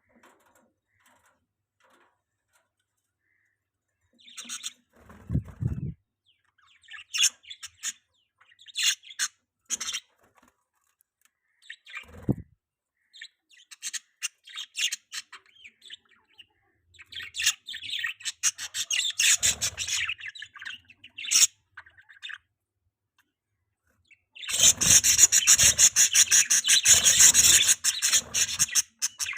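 Budgies chirping in short scattered bursts, then breaking into dense, continuous chattering near the end. Two low thumps come at about five and twelve seconds in.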